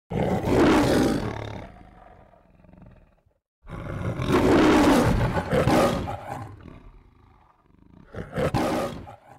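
Lion roaring three times: two long roars, each loud at the start and fading over about three seconds, then a shorter roar near the end.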